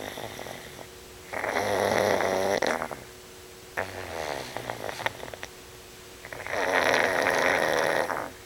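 Pug snoring: two loud snores about five seconds apart, each lasting about a second and a half, with quieter fluttering breaths in between.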